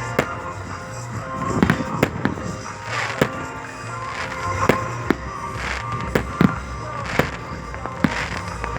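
Fireworks going off: a dozen or so sharp bangs of firecrackers and rockets, some followed by crackling, over music playing in the background.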